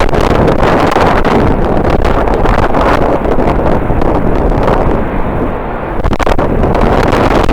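Strong wind buffeting the microphone: a loud, constant rumbling rush with rapid gusty thumps, easing briefly a little after five seconds in.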